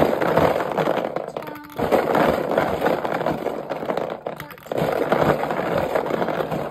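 Loud rustling and crackling of a cotton shirt brushing and rubbing against the phone's microphone, with two brief lulls.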